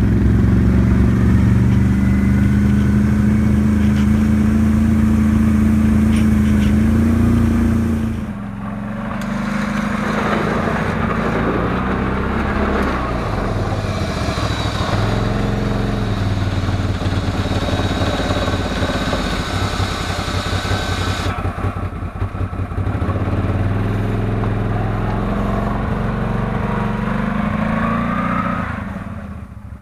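ATV engine running while the quad pushes a snow plow blade, heard from the rider's seat for the first few seconds. Then a CFMoto quad with a front plow is heard from beside it, its engine speed rising and falling, and fading near the end as it drives off.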